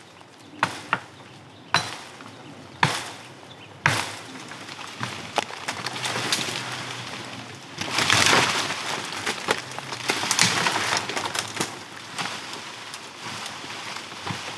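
Four sharp chops into green wood about a second apart, then leaves and branches rustling with cracking and splintering wood as a sapling is bent and wrenched over by hand, loudest about eight seconds in.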